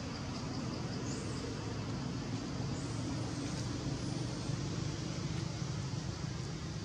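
Steady low background rumble, with a couple of faint high chirps about a second and three seconds in.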